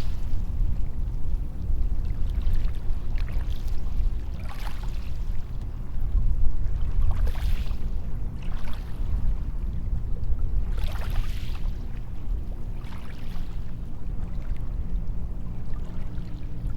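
Small waves breaking and washing up a sandy beach: a steady low rumble of surf with a hissing splash every one to three seconds as each wave comes in.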